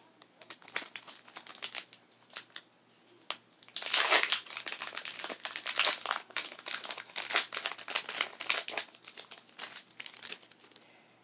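Foil wrapper of a Pokémon trading card booster pack being opened and crinkled by hand: a run of sharp, irregular crackles, densest about four seconds in and again from about six to nine seconds.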